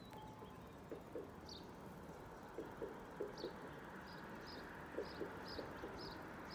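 Small bird chirping repeatedly, short high chirps every half second or so, over a faint steady background hiss.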